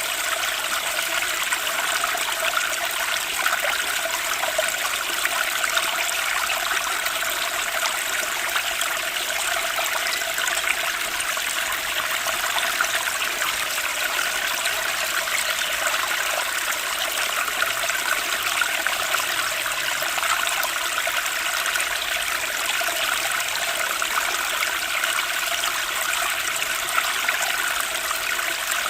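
Water flowing steadily, a continuous even rush and trickle with no breaks.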